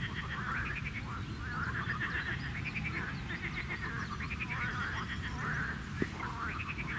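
A chorus of frogs calling: pulsed, trilling calls one after another, overlapping, over a low rumble, with a single sharp click about six seconds in.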